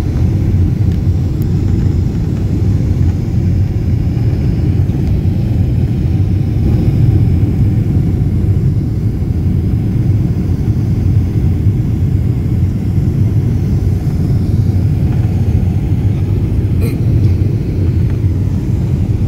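Jet airliner cabin noise: a steady low rumble of engines and airflow heard from inside the cabin at a window seat, with the flaps lowered for approach.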